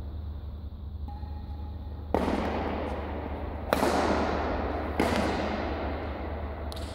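Badminton racket strikes on a shuttlecock during a rally, three sharp cracks about a second and a half apart, each followed by a long echo in the sports hall, over a steady low hum.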